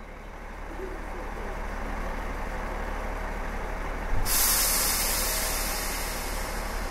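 Electric train with a steady low rumble that builds, then a sudden loud hiss of air brakes about four seconds in that slowly eases off.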